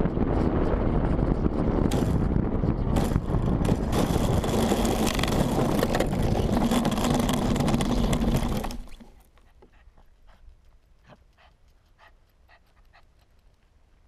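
An RC plane's landing-gear wheels rumbling and rattling fast over cracked concrete during the rollout after landing, picked up by a camera mounted on the airframe, with wind noise and several sharp knocks from the cracks. About nine seconds in the rumble stops fairly suddenly as the plane comes to a halt, leaving only faint ticks.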